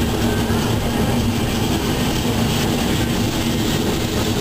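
DXC-class diesel-electric locomotive running at steady speed, heard from inside its cab: a constant engine drone with a steady hum under the rush of wheels on rail.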